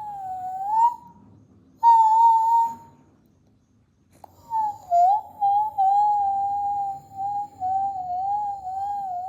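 Dog whining in a high, thin, wavering tone: two short whines about a second each, then a long drawn-out whine from about four seconds in that wobbles up and down in pitch.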